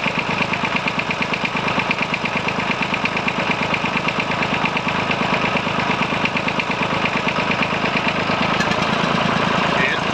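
Massey Ferguson 35's three-cylinder diesel engine idling cold with a steady pulsing beat, misfiring on one cylinder now and again. The owner suspects something small blocked in the injection pump, since swapping injectors made no difference.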